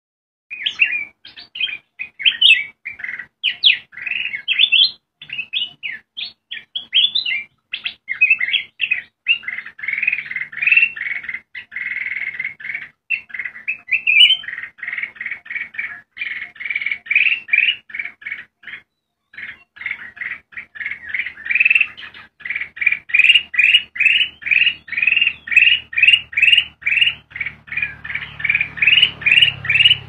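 Black-crested bulbul singing: a quick, chattering run of short chirpy notes that later settles into an even series of rising-and-falling whistled notes, about two a second.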